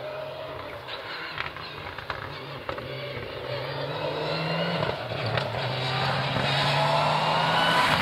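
Mitsubishi Lancer Evolution rally car at full throttle on a gravel stage, its engine climbing in pitch and dropping back at each gear change, growing louder as it approaches.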